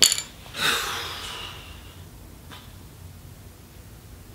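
A sharp tap, then a man's short breathy exhale that fades over about a second.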